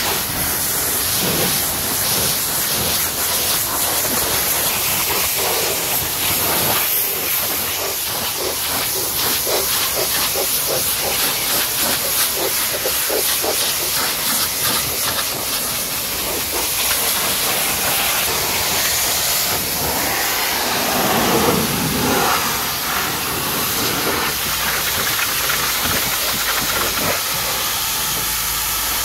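High-pressure washer jet spraying water onto a car's bodywork and wheel: a steady, loud hiss of spray, with its tone shifting for a couple of seconds around twenty seconds in.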